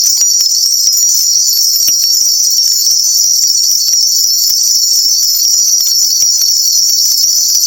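A shaman's ritual bell cluster shaken rapidly and without pause, a loud, steady high jingling, as is done to call on the spirits during a reading.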